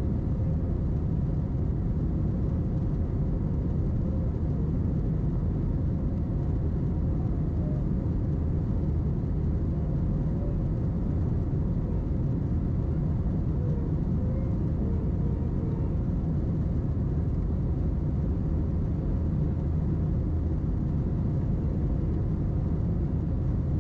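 Steady low rumble of the cabin noise inside an Airbus A321 climbing after takeoff: its jet engines running at climb power and air rushing past the fuselage.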